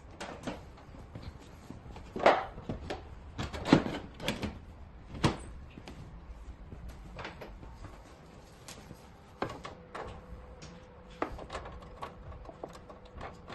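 Irregular knocks and clunks of objects being handled, the loudest about two and four seconds in, with a faint steady hum in the second half.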